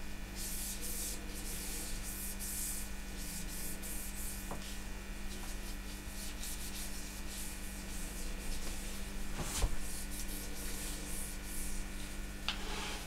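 Irregular rustling and rubbing as hands work pieces of bark around an orchid's roots in its pot. One knock comes about nine and a half seconds in.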